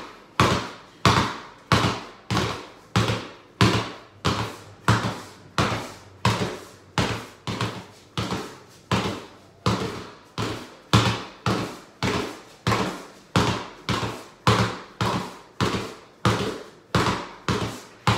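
Basketball dribbled hard and low in a steady rhythm of about two bounces a second, each bounce followed by a short echo in the room. These are jolt dribbles: the ball is pushed straight back down before it rises past knee height, so the bounces come quick and even.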